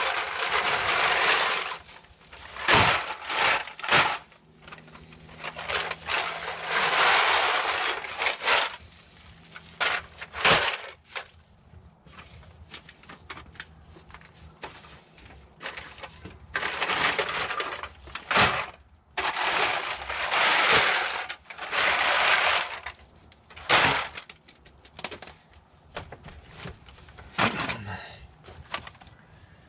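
Plastic trash bags full of aluminum cans being handled and shifted: the bags rustle and the cans inside crunch and clatter in bursts of a second or two, with sharp knocks in between.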